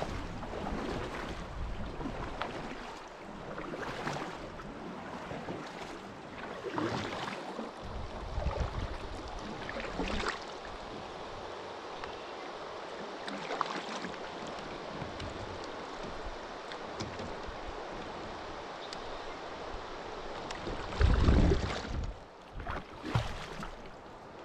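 Steady rush of river water with wind rumbling on the microphone, broken by a few short splashes or knocks; a heavy low thump about 21 seconds in is the loudest sound.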